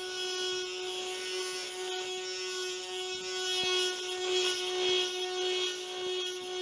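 A small electric motor whirring steadily at a constant pitch, cutting out for a moment about two seconds in.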